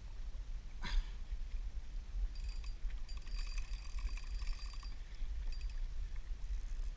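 Wind rumbling on the microphone, with one sharp knock about a second in. From about two seconds in, a Penn fishing reel's drag buzzes with rapid clicks for a couple of seconds as the hooked marlin pulls line off it.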